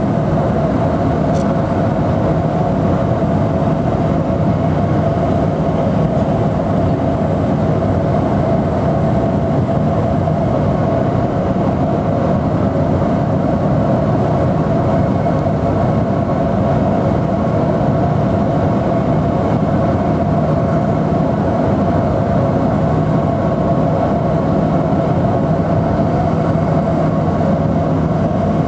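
Cabin drone of a de Havilland Twin Otter's two PT6A turboprop engines and propellers in cruise flight: a loud, constant roar with a low hum and a higher steady tone held at unchanging pitch.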